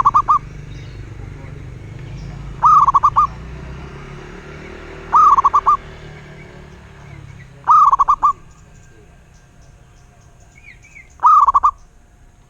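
Zebra dove (perkutut) singing: short phrases of a few quick, rolling coo notes, repeated five times about every two and a half seconds. A faint chirp from another bird sounds once near the end.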